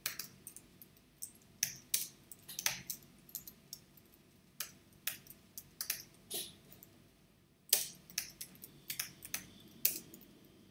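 Typing on a computer keyboard: a run of keystroke clicks at an uneven pace, with a pause of about a second past the middle.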